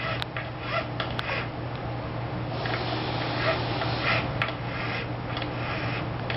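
Needle file rasping against a metal ring in a series of short, uneven strokes, with a few light clicks, over a steady low hum.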